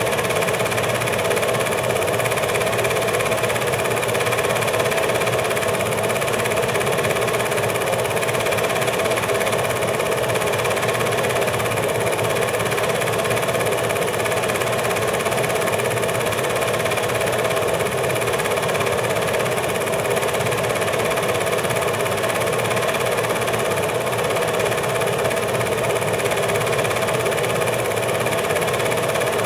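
8mm film projector running: a steady mechanical whir and hum of its motor and film transport that never changes.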